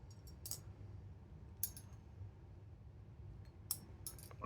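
Titanium balisong trainer being flipped: a few short, sharp metallic clicks as the handles clack and swing on its pivots.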